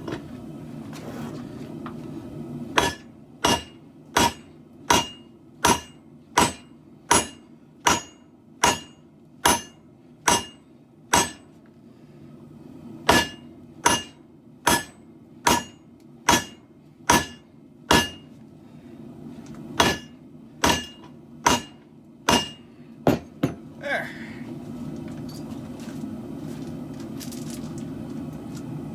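Hammer forging katana blade steel on an anvil: about 25 ringing blows at a bit more than one a second, in three runs with short pauses. A steady low hum runs underneath.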